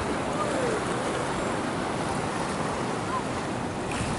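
Small waves washing and lapping against the rocks of a shoreline, in a steady wash, with wind buffeting the microphone.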